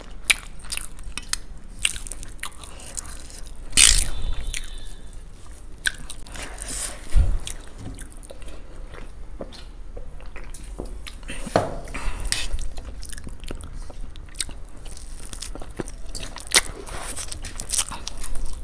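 Close-miked eating: two people chewing and biting into masala instant noodles, boiled eggs and fried cauliflower pakoda, with irregular wet smacks and crunches and a few louder bites.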